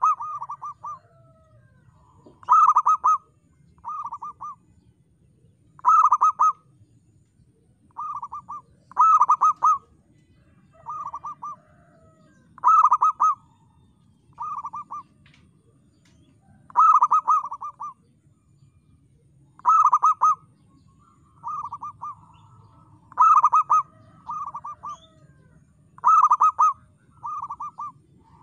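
Zebra dove (perkutut) cooing: short phrases of rapid, rolling coos repeated about every one and a half seconds. Louder phrases alternate with one or two softer ones.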